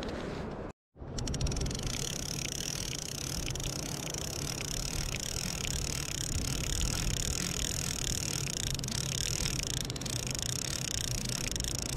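A multiplier fishing reel being wound in, its gears whirring steadily with faint regular ticking. The sound drops out completely for a moment near the start.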